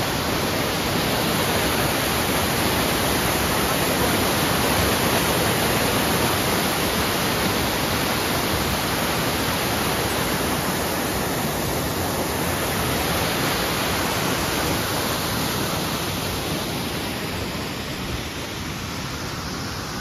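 Snowmelt waterfall pouring: a loud, steady rushing of water that eases slightly in the last few seconds.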